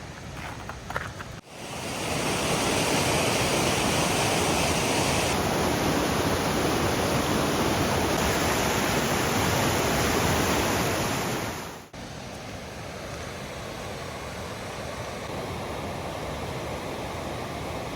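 Rushing whitewater of a creek running high with snowmelt: a steady, even roar. It becomes louder abruptly about a second and a half in and quieter again just before twelve seconds.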